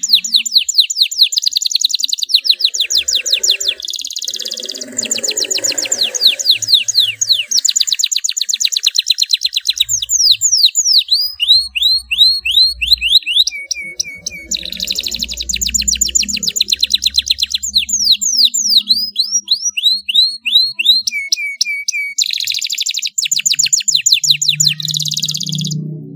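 Domestic canary singing a long, fast rolling song: rapid trills of repeated high notes, quick downward-sweeping phrases and a few short, lower steady whistles, with only brief pauses.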